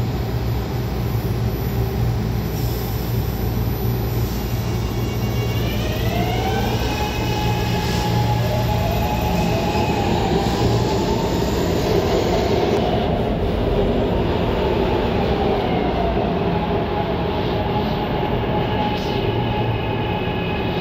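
SEPTA Market–Frankford Line M4 rapid-transit train running along the elevated platform: steady rumble of steel wheels on rails, with the whine of its electric drive climbing in pitch about six seconds in and several tones shifting against each other after that.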